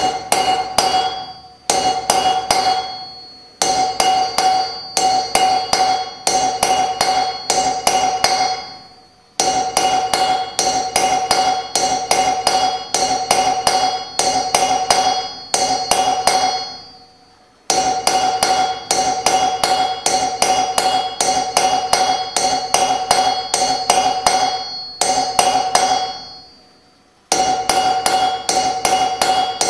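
Small hammer striking a hand-held punch in quick runs of several blows a second, each blow raising a tooth on a steel rasp cylinder and setting the steel ringing with a steady metallic tone. The runs are broken by a few short pauses.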